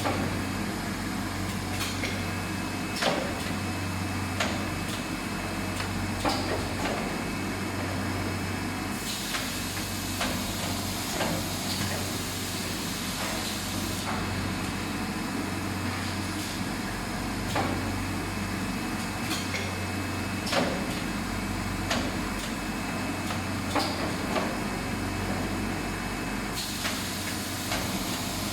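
Hardcover book case-making machinery running: a steady mechanical drone whose low hum pulses in a repeating cycle every two seconds or so, with scattered clicks and knocks. A hiss comes in for several seconds near the middle and again near the end.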